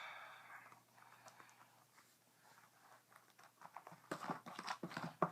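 Faint scattered small clicks and light taps over quiet room tone, growing busier about four seconds in.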